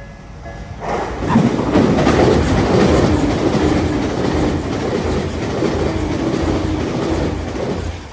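A Tokyu Meguro Line electric train passes a level crossing at high speed, wheels clattering over the rails. It arrives about a second in, drowning the ringing crossing bell, and starts to fade near the end.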